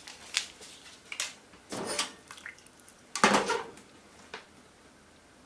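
Short kitchen handling noises: powdered dashi shaken from a stick packet into a saucepan, with several light clicks and rustles and one louder scraping clatter a little past three seconds in as the pot is shifted on the gas burner grate.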